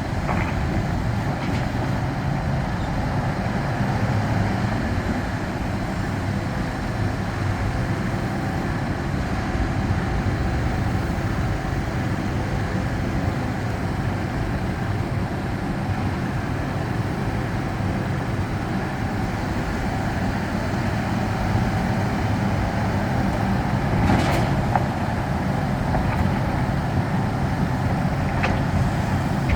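Heavy diesel engine of construction machinery running steadily, with two sharp knocks late on.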